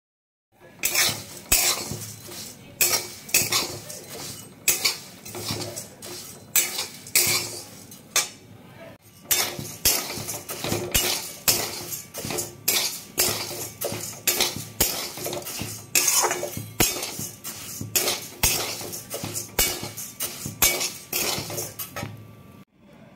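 Flat spatula stirring and scraping flattened rice (chire) around a pan as it roasts: rhythmic strokes about two a second, each with the rustle of the dry flakes, with a short pause partway through.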